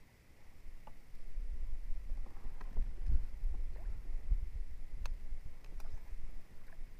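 Low rumbling handling noise from a person moving about in a plastic fishing kayak, with a few light clicks and knocks as rod and reel are handled.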